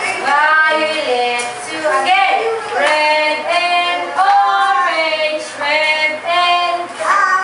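A woman and young children singing a song together, in held notes that rise and fall.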